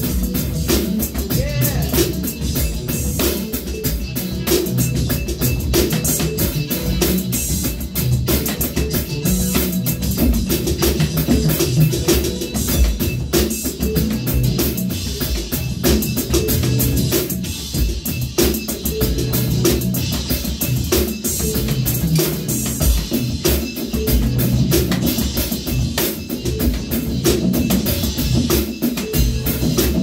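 Acoustic drum kit played in a continuous groove, with a busy mix of bass drum, snare and cymbal strikes.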